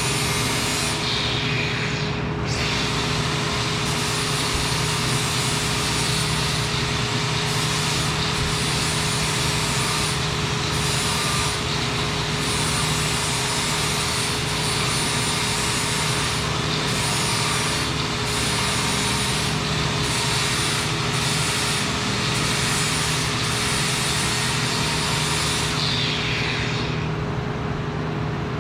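Steady metal-fabrication shop noise: a constant machine hum under a high hiss that drops out briefly every second or two.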